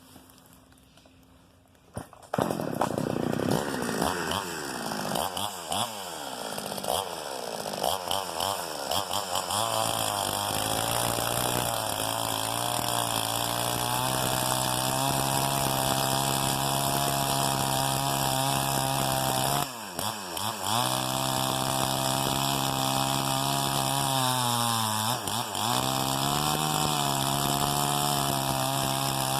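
Chainsaw ripping a dry log into boards: it comes in suddenly about two seconds in, revs up and down, then runs at a steady high speed under load, dipping briefly twice, about twenty and twenty-five seconds in.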